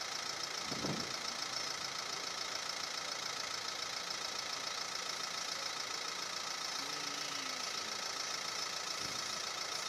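Jet engine running at idle: a steady high whine with several held tones over a constant rush, and a faint thump about a second in.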